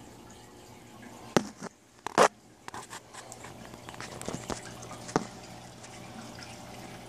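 Aquarium water trickling and dripping over a steady low hum, broken by several sharp knocks and clicks. The loudest knocks come between one and two and a half seconds in.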